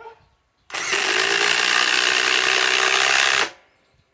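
Ryobi PSBIW25 compact impact wrench running for about three seconds, driving a fastener partway into wood, then stopping abruptly.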